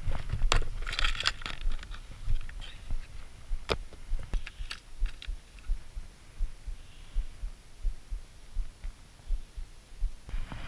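Clicks and short rattles of a plastic tackle box and lures being handled, mostly in the first five seconds, over irregular low thumps.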